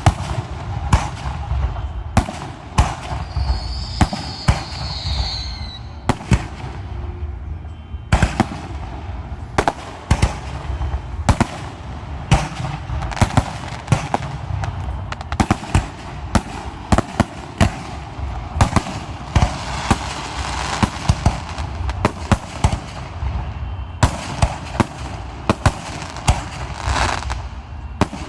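A dense barrage of aerial firework shells bursting, several sharp reports a second with barely a pause, and a falling whistle about four seconds in.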